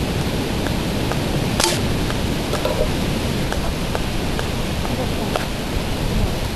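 BB gun shots at tin cans: one sharp crack about a second and a half in, then several fainter ticks and taps as the cans are knocked off their rail, over a steady hiss.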